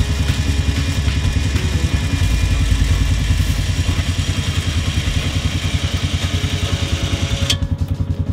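Polaris Ranger 570 utility vehicle's single-cylinder engine idling, a steady rapid low pulse. Near the end there is a sharp click, and a hiss over the engine drops away.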